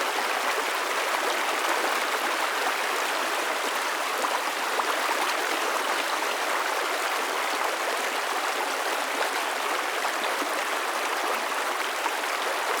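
Flowing stream water running steadily: an even rushing, splashing hiss with no low rumble.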